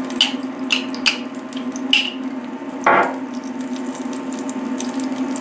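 Oil with bits of garlic sizzling gently in a pot over the steady low hum of an induction cooktop, with several light clicks as a fork scrapes solid coconut oil out of a glass jar; the sharpest knock comes about three seconds in.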